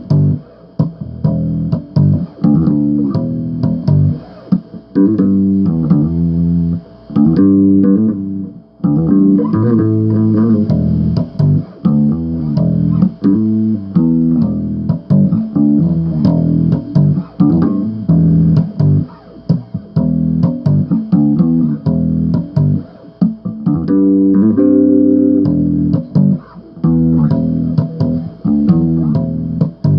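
Bass guitar riffing: a run of short plucked notes with a brief pause about eight seconds in.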